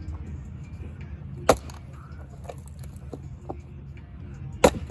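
Two sharp axe strikes on wood, one about a second and a half in and one near the end, with a few lighter knocks between them over a steady low rumble.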